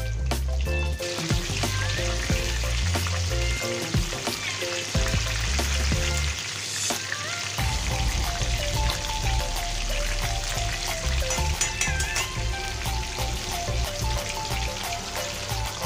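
Battered stuffed tofu deep-frying in hot oil in a wok: a steady, dense sizzling and bubbling. Partway through, the pieces are turned in the oil with tongs.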